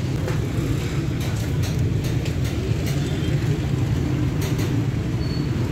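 Street traffic: a steady low engine rumble from vehicles, with an auto-rickshaw passing close and a few faint clicks.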